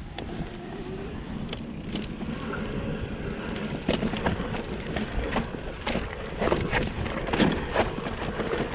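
Electric mountain bike rolling down a rocky chute, with a steady rumble and repeated knocks and rattles from the tyres and bike hitting rock. The clatter gets denser and louder about halfway through.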